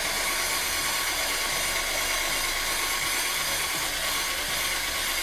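Cordless drill running a wire brush wheel against a cast iron skillet, scouring off the old seasoning and rust: a steady motor whine under a harsh wire-on-iron scrubbing.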